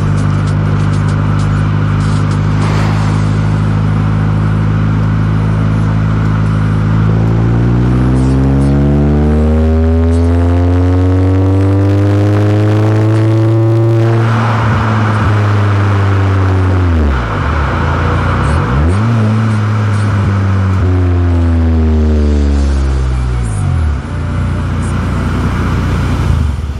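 Honda CR-Z Mugen RZ's engine and exhaust under way: steady for several seconds, then rising in pitch under acceleration, then falling off. Revs dip sharply twice in quick succession, rise once more and fall away near the end.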